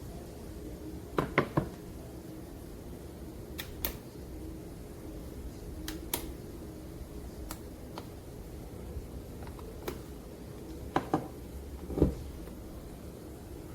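Scattered light clicks and knocks, a few at a time and irregularly spaced, over a steady low hum.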